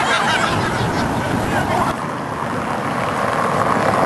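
Street traffic running past, a steady rush of vehicle noise, with people's voices mixed in, mostly in the first couple of seconds.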